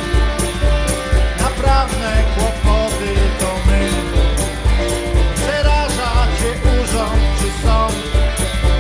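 Live band playing an upbeat song with banjo, electric guitar, stage piano and a Meinl cajon with tambourine keeping a steady beat.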